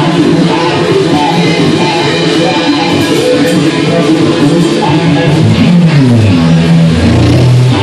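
A live rock band of electric guitar, electric bass and drum kit playing an instrumental passage with no vocals. About three-quarters of the way through, a line of low notes steps downward and settles on a held low note.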